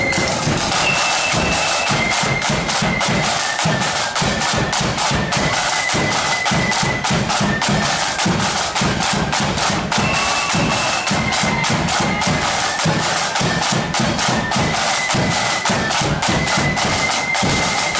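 Marching flute band playing: a rank of side drums beating rapid, dense strokes under a tune on flutes with high held notes.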